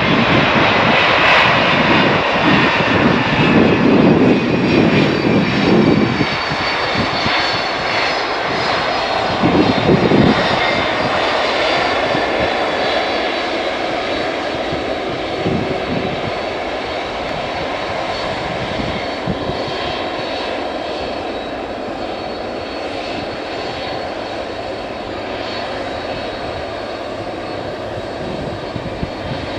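Boeing 747-400F jet engines running as the freighter rolls out along the runway after landing. For the first six seconds there is a deep rumble under a high engine whine that falls in pitch; after that a steady whine at low power grows slowly quieter.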